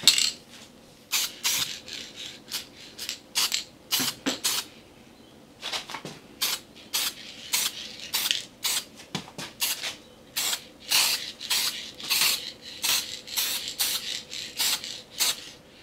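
Aerosol spray can of clear gloss rust-protective lacquer sprayed in many short hisses, one after another, starting about a second in.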